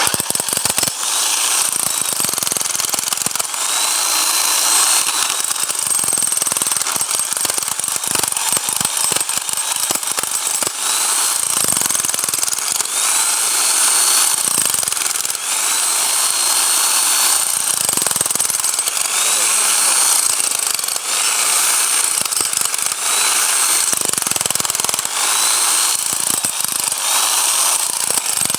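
Bosch hammer drill running continuously with a loud, steady hammering rattle and a whine that rises in pitch every couple of seconds.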